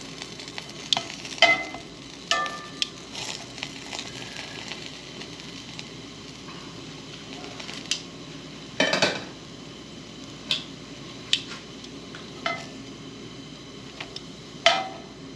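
Bagel halves sizzling in a hot cast iron skillet on a propane camp stove, with metal tongs clicking and scraping against the pan as they are turned. The louder clatters come about nine seconds in and again near the end.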